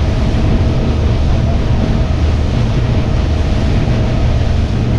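Motorboat engine running steadily at cruising speed, with wind buffeting the microphone and water rushing past the hull.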